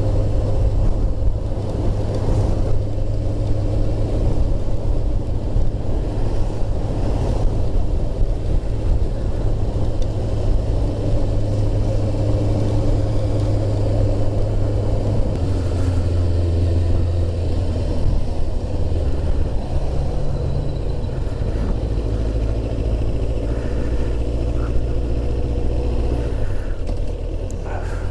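Kawasaki ZX6R's 599 cc inline-four engine running steadily under way, with wind and road noise. Its low drone shifts in pitch about halfway through and again near the end as the speed changes.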